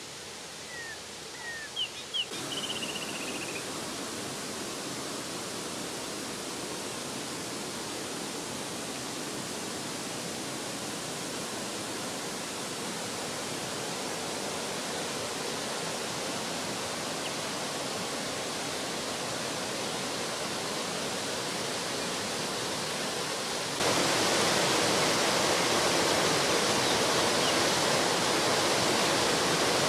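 Water of a swollen stream rushing over a small stone-ledge waterfall: a steady rush that comes in about two seconds in, slowly grows and jumps louder near the end. A few short chirps sound just before the rush comes in.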